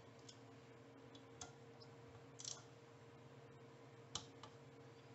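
A handful of faint, scattered clicks from a socket wrench as the bolts on an aluminium motorcycle engine cover are rechecked, over a low steady room hum.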